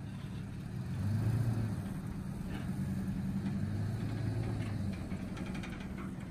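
A motor vehicle engine running at a steady low hum, swelling slightly about a second in and again around the middle.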